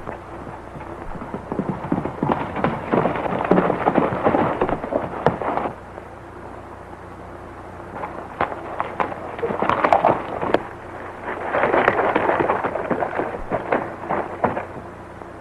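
Gunfight: many gunshots in quick succession, in two long bursts of several seconds each, with a lull between them about six to eight seconds in.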